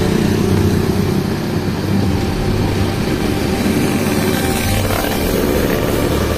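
Street traffic: motorbikes and scooters riding past a queue of tour buses, a steady engine rumble with road noise.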